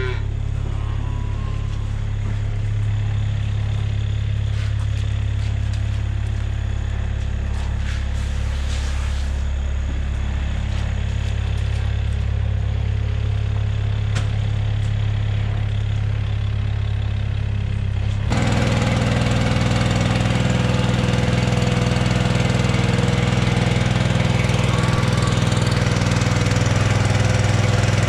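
A farm machine's engine running steadily. About 18 seconds in it switches abruptly to a louder small engine, that of a ride-on calf-feeding cart.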